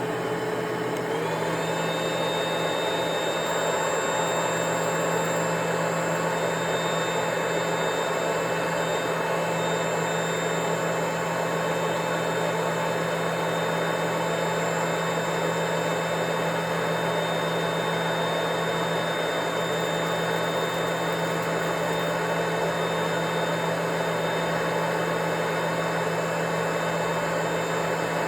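Vacuum cleaner running steadily: a constant rush of air with a high motor whine. The whine rises slightly about a second in, then holds.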